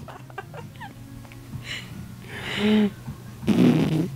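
A baby buzzing the lips, blowing raspberries: a short pitched buzz about halfway through, then a louder, noisier raspberry near the end.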